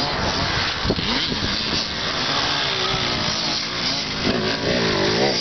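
Dirt bike engines revving, the pitch rising and falling as the bikes accelerate and back off over a steady rushing noise. One bike revs up and down several times near the end.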